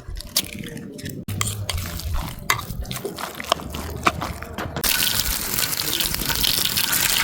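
Light clicks and taps, then about five seconds in a loud, steady sizzle starts abruptly: potato kuku mixture or food going into hot oil in a pan and frying.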